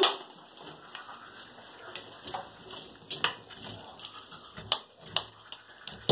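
A ferret tussling with a mop in a bathtub: scattered light clicks and taps, about half a dozen spread over the few seconds, over a faint low hum.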